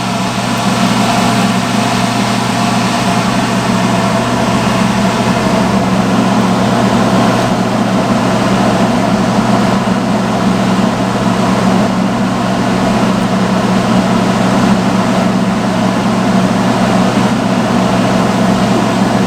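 Salon hood hair dryer running steadily: a loud, even rush of blown air over a low hum.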